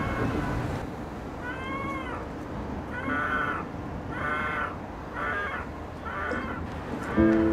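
A kitten trapped inside a bridge meowing in distress, about six cries roughly a second apart. Background music comes in near the end.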